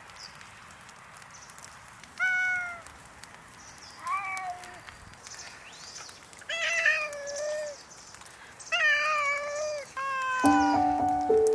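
Several hungry cats meowing, about five short drawn-out calls a second or two apart, some overlapping, begging for food. Piano music comes in near the end.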